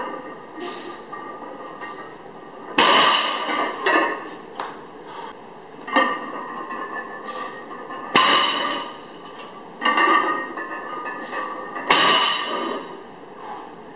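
Loaded barbell with bumper plates set down on the floor between deadlift reps: four loud knocks two to four seconds apart, each followed by about a second of rattle from the bar and plates.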